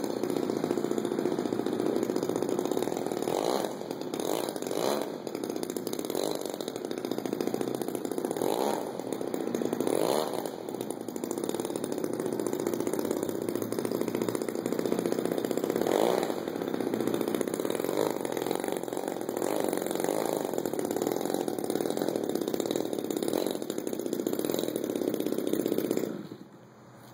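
MLD 35 single-cylinder two-stroke gasoline engine of a radio-controlled model plane running during its break-in, with the throttle opened and closed several times as the plane taxis. The engine cuts off suddenly about a second before the end.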